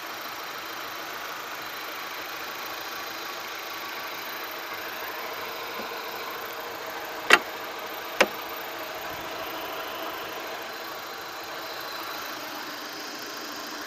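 Engine idling steadily, with two sharp clicks a little under a second apart about halfway through.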